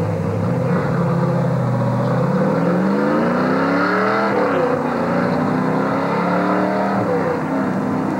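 NASCAR stock car's V8 engine accelerating away from pit road. Its pitch climbs steadily, dips once about four seconds in as the car shifts up, then rises again and settles.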